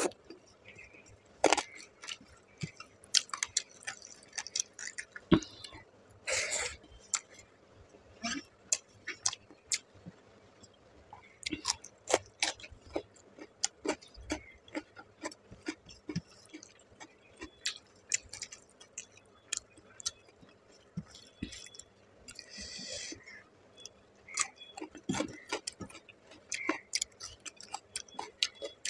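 Close-miked chewing of rice and fish curry eaten by hand, with many short wet clicks scattered irregularly and two brief hissing noises, about six seconds in and past the twenty-second mark.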